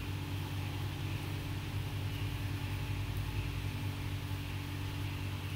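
Steady low mechanical hum with a faint hiss: room background noise, unchanging throughout.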